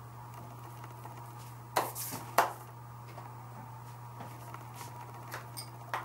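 Two sharp clacks in quick succession about two seconds in, then a few lighter ticks near the end, as small hard makeup containers and tools are handled and set down. A steady low hum runs underneath.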